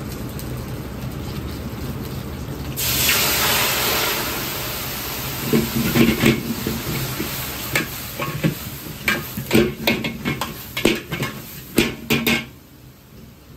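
A ladle of seasoning sauce hits the hot iron wok about three seconds in: a sudden loud sizzle and hiss that slowly fades as steam rises. Then the metal ladle clanks and scrapes against the wok many times as the fried chicken drumettes are tossed, stopping shortly before the end, over a low steady rumble from the wok burner.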